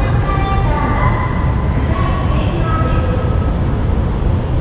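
Steady low rumble while riding down a station escalator, with a faint public-address voice over it.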